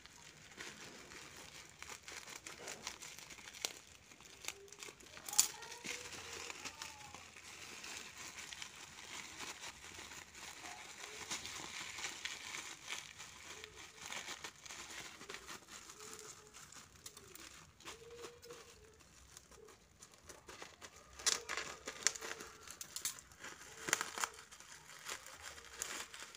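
Plastic courier mailer bag crinkling and rustling as it is cut open with scissors and pulled apart by hand, with a few sharper crackles. Bubble wrap is handled near the end.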